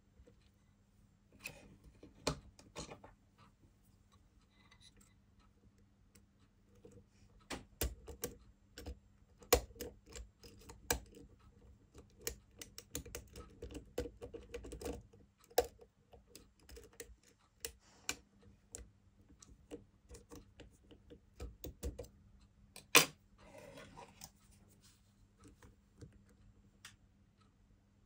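Lock pick and tension wrench working the pins of a six-pin Euro profile cylinder: irregular small metallic clicks and scratches, coming thick and fast for several seconds in the middle, with one sharp, louder click later on.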